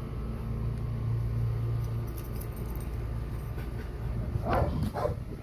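A steady low hum runs under light rustling and clinking as potatoes are picked through in loose potting soil. A few short, sharp sounds come near the end.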